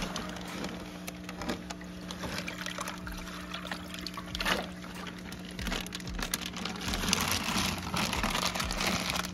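Water poured out of a plastic fish-shipping bag into a plastic bucket, splashing and trickling, with the bag being handled.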